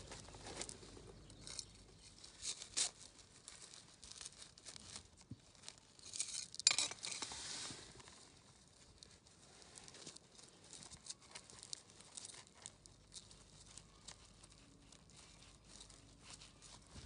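Hands digging through soil and gravel to lift a strawberry plant: close scraping and crackling with small sharp clicks, loudest in a burst about six to eight seconds in, then fainter.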